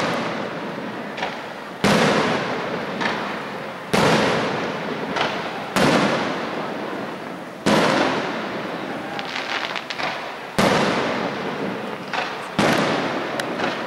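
Aerial firework shells exploding: six loud bangs about two seconds apart, each followed by a long echoing rumble that dies away, with a few lighter cracks in between.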